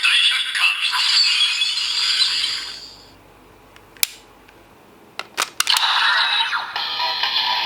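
Electronic sound effects from the DX Enkaiken Rouen toy sword's small speaker, thin with no bass, cutting out about three seconds in. A few sharp plastic clicks follow. The toy's sound starts again about six seconds in.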